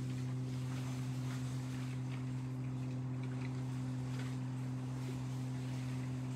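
A steady low hum that holds one unchanging pitch with a fainter overtone, with a few faint short high ticks or chirps over it.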